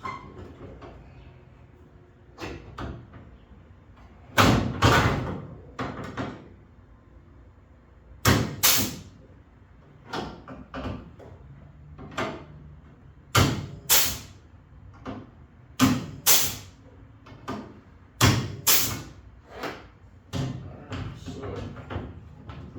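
Loud, sharp knocks, mostly in pairs about half a second apart, repeating every few seconds with fainter knocks in between.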